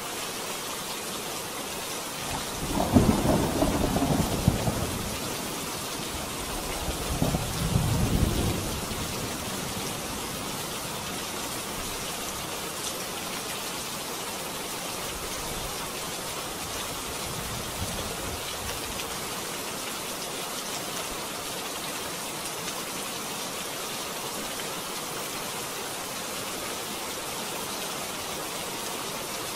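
Steady rain falling, with two rolls of thunder rumbling a couple of seconds each, the first about three seconds in and the second about seven seconds in, and a faint third rumble about midway; then rain alone.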